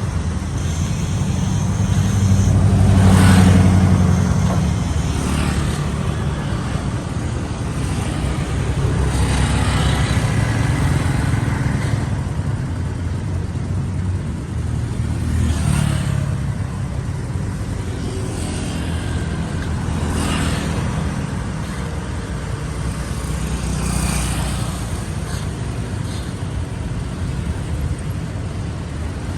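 City street traffic: a steady rumble of cars and other vehicles, with several passing one after another, the loudest going by about three seconds in.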